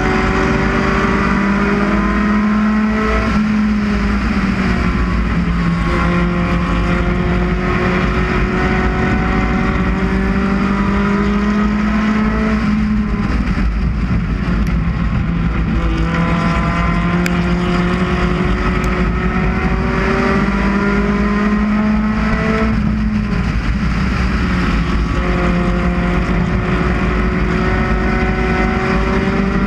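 Four-cylinder UCAR race car engine at racing speed, heard from inside the car: its pitch climbs slowly along the straights and falls back each time the driver lifts for a turn, several times over.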